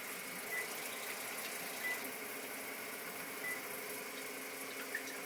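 Panasonic DL-WH20 warm-water bidet toilet seat running its wash: a steady motor and pump hum with scattered small clicks and knocks. The owner takes this knocking in the 'move' wash mode for an abnormal noise.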